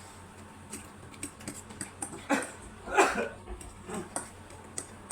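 Eating sounds of noodles: short, scattered mouth clicks and smacks of chewing, with a couple of brief slurps or sharp breaths about two and three seconds in, the second the loudest.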